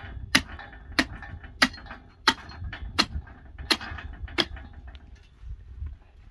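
Meat cleaver chopping into a hanging sheep carcass: about seven sharp strikes roughly two thirds of a second apart, stopping about four and a half seconds in.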